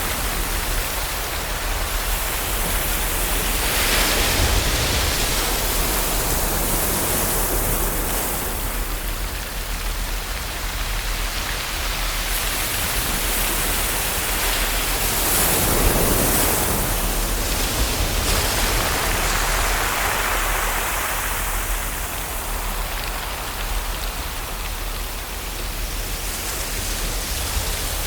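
Ocean waves washing in, a continuous rushing hiss that swells and eases every several seconds as each wave breaks and draws back.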